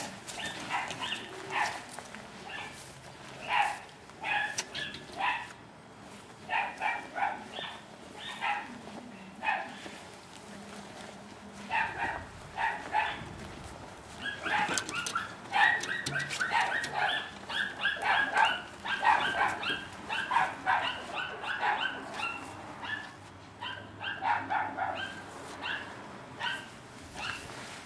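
A dog barking over and over, short barks coming in quick runs with brief pauses between them.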